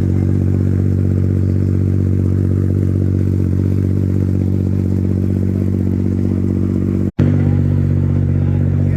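Nissan GT-R Nismo GT3 race car's twin-turbo V6 idling steadily and loudly, with no revs. The sound cuts out for an instant about seven seconds in, then the idle carries on.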